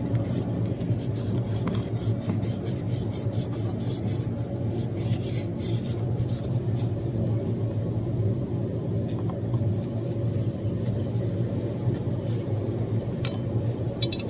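A small metal part being polished by hand, with quick rubbing and scraping strokes that come thick in the first half and thin out later, over a steady low hum. A couple of sharp clicks near the end.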